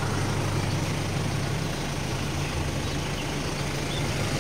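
Hyundai H-1 van's engine idling steadily as it warms up, a constant low hum.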